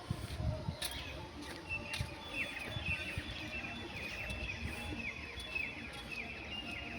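A bird singing a rapid run of short, falling chirps, from about two seconds in until near the end, over a low rumbling background.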